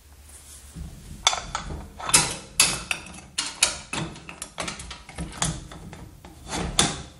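Wheelbarrow axle, wheel hub and steel axle brackets knocking and clicking against each other as the wheel is worked into place on the frame: an irregular run of sharp metal clicks and knocks.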